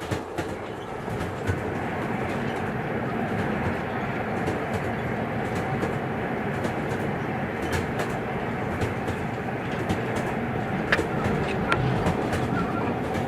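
Inside a moving train carriage: the steady rumble of the wheels and running gear on the rails, with scattered faint clicks and knocks.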